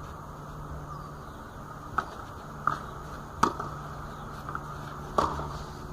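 Tennis ball knocks: four short sharp hits or bounces, the first three about three quarters of a second apart and the last a little under two seconds later, over a faint steady hum.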